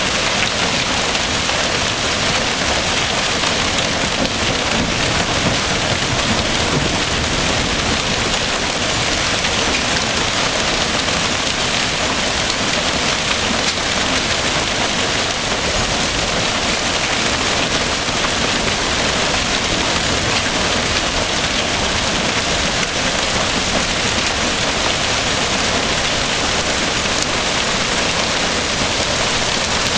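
Hail and rain falling hard in a storm, a dense, steady, loud rush of countless hailstones and raindrops striking surfaces.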